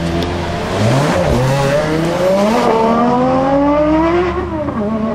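Aston Martin One-77's 7.3-litre V12 accelerating in a tunnel. Its note rises, shifts up about two and a half seconds in, climbs again, then drops as the throttle is lifted near the end.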